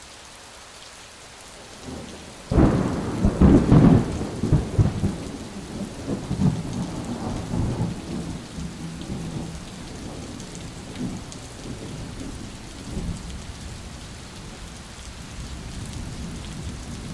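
Thunderstorm sound: steady rain hiss, then a sudden loud thunderclap about two and a half seconds in. Heavy rumbling follows, easing into softer rolling thunder with a few swells over the rain.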